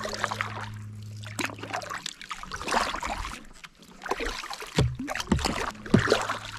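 Kayak paddle strokes: the paddle blades dip and splash, water runs off them, and there are a few sharper knocks near the end. A low steady hum sounds for the first couple of seconds.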